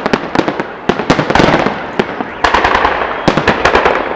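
Fireworks salute going off in volleys: a cluster of rapid sharp bangs roughly every second, each cluster followed by a rolling echo.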